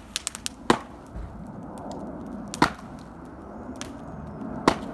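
Heavy blows hammering the back of a splitting axe lodged in a log, driving the axe into the wood to split it: three sharp strikes about two seconds apart.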